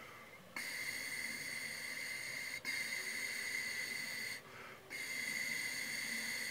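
Air blown steadily through a trumpet mouthpiece without buzzing the lips, a breathy hiss with a faint whistling tone. There are two blows of about two seconds each, a short breath in, then a longer blow, paced like two half notes and a whole note in a relaxed-air exercise.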